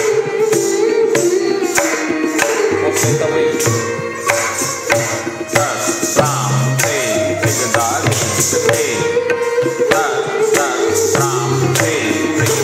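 Tabla playing in teental, the sixteen-beat cycle, with quick, sharp strokes over a held melodic accompaniment line: Kathak dance accompaniment.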